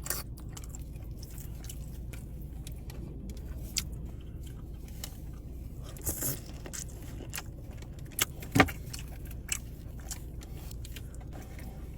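Close-up eating sounds from a buttery seafood boil: scattered wet smacks and clicks of biting and chewing over a steady low hum, with one sharp, loud click about eight and a half seconds in.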